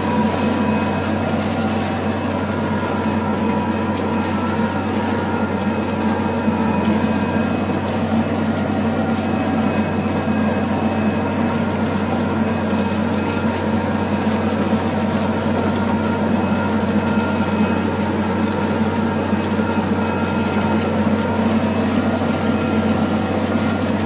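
Tractor engine running steadily under load as it pulls a disc harrow through the soil: a constant drone at an unchanging pitch.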